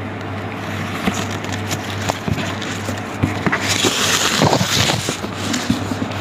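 Satin ribbon and a cardboard gift box being handled: soft rustles and small clicks as the ribbon is untied and pulled free, with a longer rustling slide about three and a half seconds in, over a steady low hum.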